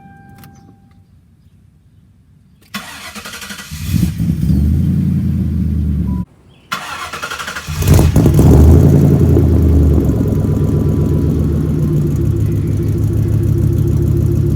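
Mercury Grand Marquis V8 engine running: it comes in about three seconds in and builds, cuts out briefly, then revs up and settles into a steady run.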